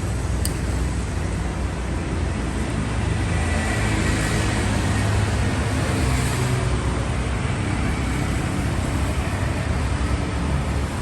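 A Toyota Prius running steadily, with a constant low rumble, and one sharp click about half a second in.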